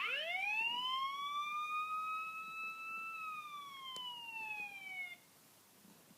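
Siren sound effect played from a sound-effects app: one long wail that rises over about three seconds, then slowly falls and cuts off about five seconds in.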